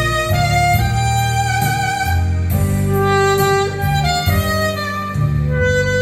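Saxophone playing a melody of held notes over a backing accompaniment with a bass line.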